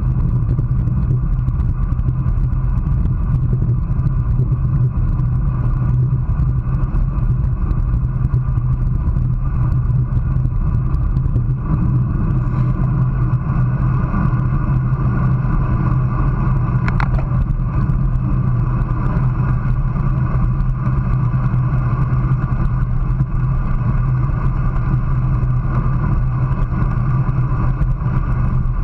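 Steady wind rush and road rumble on a camera mounted on a road bike's handlebars, riding at about 24 mph, with a brief sharp high sound about 17 seconds in.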